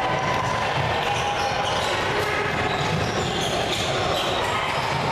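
Indoor basketball game: the ball bouncing on the hardwood court and sneakers squeaking, with players' and spectators' voices mixed in.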